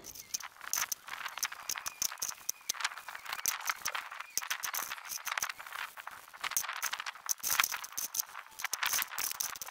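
Small steel differential parts clinking and rattling against each other and the bucket as gloved hands scrub them in degreaser, with liquid swishing. The clatter comes as a dense run of short, irregular clicks.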